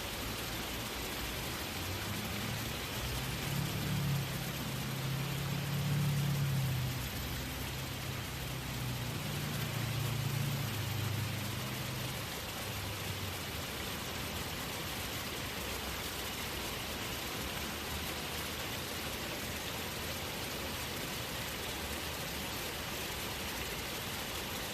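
Small waterfall rushing steadily. A low rumble swells about two seconds in and fades out again around halfway through.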